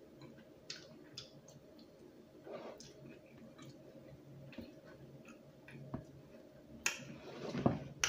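Close-up chewing of fries and chicken wings, with scattered soft wet mouth clicks and smacks and light fork clicks against a plastic container. A sharper click and a louder mouth sound come near the end.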